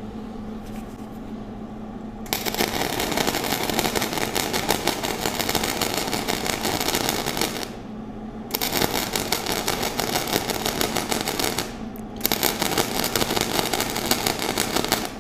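Flux-core arc welding with a Millermatic 141 wire-feed welder, wire speed set too high for the voltage: a rough, choppy crackle as the wire keeps hitting the plate instead of burning in, the sign of no penetration. The arc starts about two seconds in and runs three times, about five, three and three seconds long, with short breaks between, over a steady hum.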